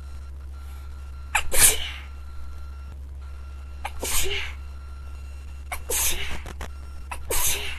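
A person sneezing four times in a row, a sneezing fit with a sneeze every second and a half to two seconds.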